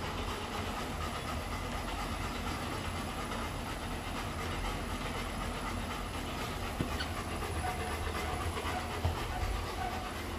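Motorized treadmill running steadily, its motor and belt whirring under a small dog's walking feet, with the dog panting. A couple of light taps come late on.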